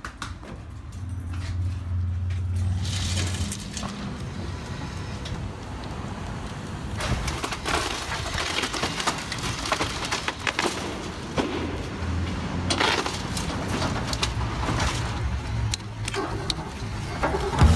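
Excavator engine running while a building is broken apart, with irregular crunching, cracking and clattering of breaking structure and falling debris that starts about three seconds in and carries on over the engine.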